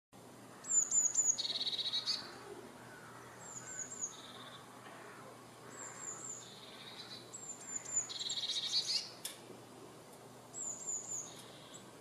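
Eurasian blue tit singing: about five phrases, each two or three high, thin descending notes followed by a lower, rapid trill.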